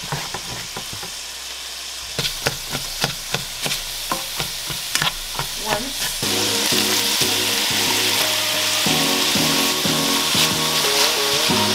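Pork sausage and diced onion sizzling in a stainless steel skillet while a slotted spatula stirs, scraping and tapping the pan in a string of sharp ticks; about six seconds in the sizzle becomes louder and fuller.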